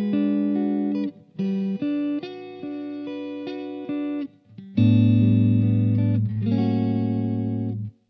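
Soloking MT-1 Custom 22 electric guitar with humbucker pickups played through an amp, picking melodic phrases of single notes with short pauses. About five seconds in, a louder low note rings out and holds, then is muted sharply just before the end.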